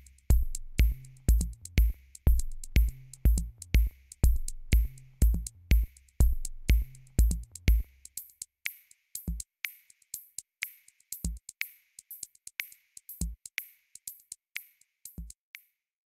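End-screen background music with a steady drum-machine beat of about two hits a second. About halfway through, the bass and heavy kick drop out, leaving a light ticking beat with an occasional kick, which stops just before the end.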